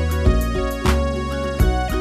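Instrumental backing music of a children's song, with sustained keyboard chords, a bass line and a steady drum beat, and no singing.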